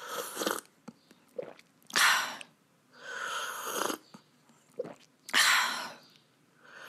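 Soup being slurped noisily: four separate sucking slurps spaced a second or two apart, with a fifth beginning at the end.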